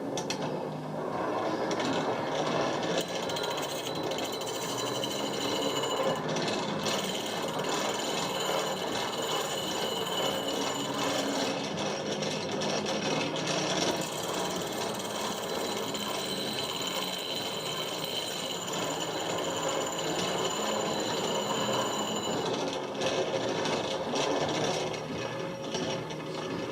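Restored antique hand-crank grinder being cranked, with a continuous rattling grind; a set of high steady tones from about three seconds in until a few seconds before the end suggests something held against the wheel. Background music plays underneath.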